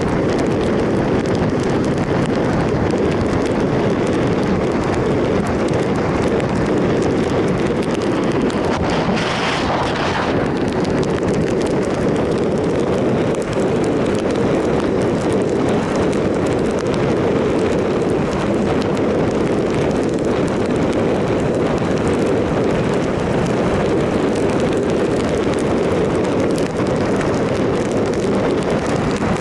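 Steady rush of wind over the microphone of a 2007 Triumph Sprint ST 1050 motorcycle riding at road speed, with a brief higher hiss about nine seconds in.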